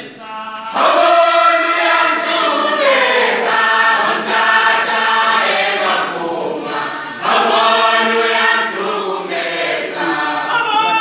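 A group of voices singing a Bhaca ingoma song together, unaccompanied, in long phrases. The singing breaks off briefly just after the start and again about two-thirds of the way through.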